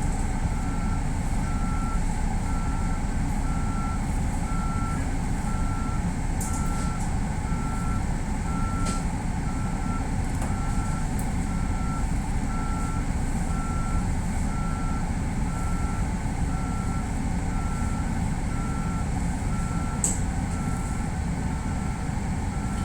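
Steady low rumble of a stopped electric train's onboard equipment, with a single-pitched electronic beep repeating evenly a little over once a second. A few faint clicks are heard now and then.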